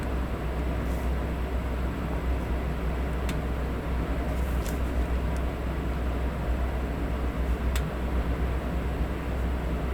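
Electric fan running as steady white noise, an even low rumble, with a few faint ticks.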